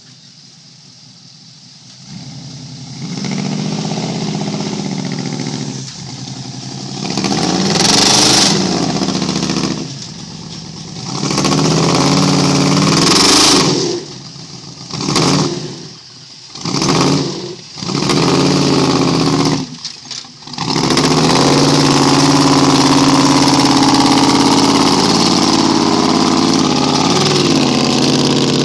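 Lifted pickup truck's engine revving hard in a string of surges as the truck churns through mud, then held at high revs for the last several seconds as it powers away. Revving starts about two seconds in.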